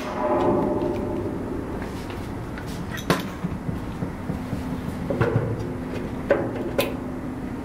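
A pop rivet snapping as the hand riveter sets it in a sheet-metal fan switch box: one sharp snap at the very start, with a brief metallic ring after it. Then a few light clicks and knocks of hands handling parts on the metal box.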